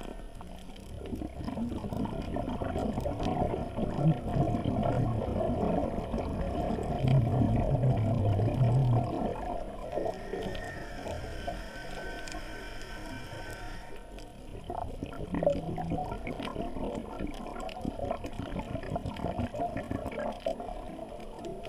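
Scuba diver's regulator breathing, heard underwater: rumbling, gurgling exhaled bubbles that swell and fade, with a thinner hiss partway through.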